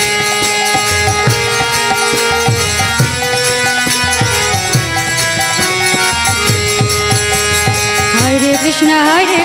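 Kirtan music: a mridanga (khol) barrel drum beats a steady rhythm under long held notes, with hand-clapping. Near the end a voice slides upward into the next sung line.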